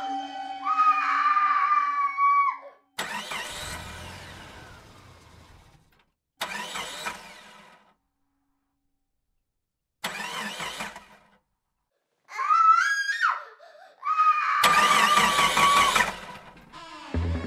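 A Honda scooter's electric starter cranking in three separate bursts, each dying away without the engine catching: the scooter won't start. A child screams at the start and twice more near the end, each a wail that rises and then holds.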